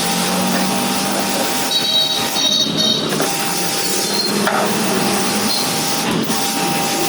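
Pressure washer running, its pump motor humming steadily under the hiss of the water jet spraying.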